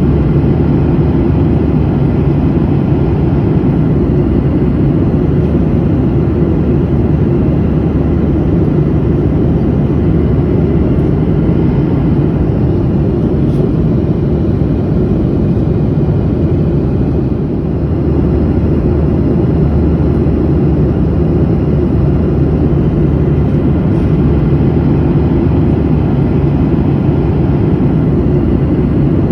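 Airliner cabin noise in flight: a steady, loud low rumble and rush from the jet engines and airflow, dipping slightly about halfway through.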